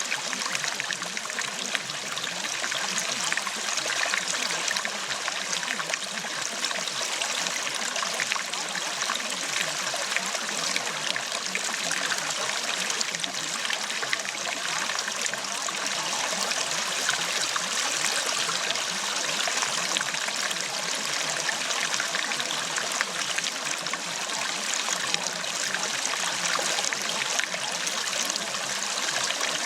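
A stream of running water, flowing and trickling steadily with no change.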